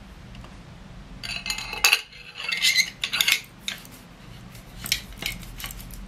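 Metal segments of a multi-function survival stick clinking and scraping against each other as a tool section is fitted on, starting about a second in, followed by a few separate sharp clicks.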